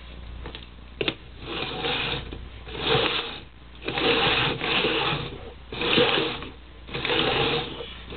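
Two plastic cups being slid around on a hardwood floor: a run of scrapes, each about half a second long, after a single knock about a second in.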